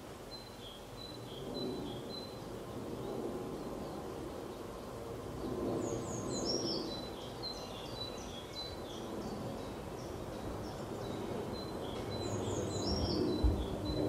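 Small songbirds singing: a run of short high chirps, then a more varied song with quick falling notes from about six seconds in, over a steady low outdoor background noise. A brief low thump near the end.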